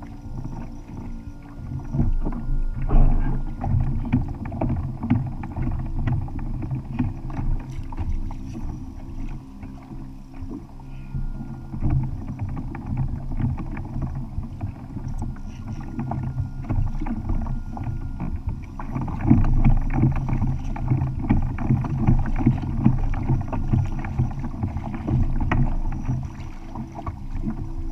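Water slapping and sloshing against a kayak's hull at sea, with a steady low hum and a dense run of small clicks and knocks, busiest in the last third.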